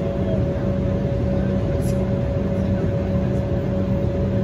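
Steady drone inside the passenger cabin of an Embraer E190 jetliner in flight: the rumble and rush of its GE CF34 turbofan engines and the airflow, with a constant mid-pitched hum that holds level throughout.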